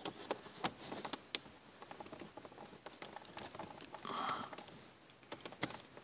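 Scattered small plastic clicks and taps of a FIXD OBD-II adapter being fumbled into the diagnostic port under the dashboard. A short breathy sound comes about four seconds in.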